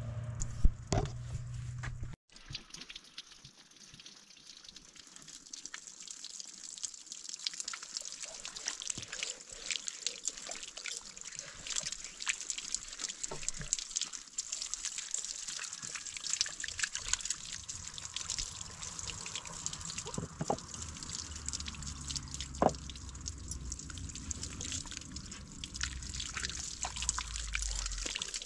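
Water from a hose trickling and splashing into a leather skin bag, with many small drips and gurgles. A low rumble joins in during the second half as the bag fills.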